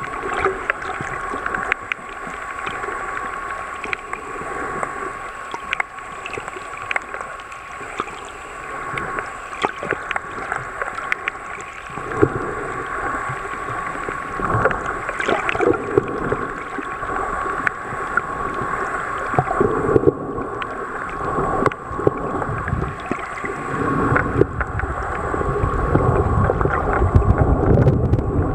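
Underwater sound picked up by a camera: a muffled rush of water with scattered clicks and crackles over a steady faint tone, and a low rumble building near the end.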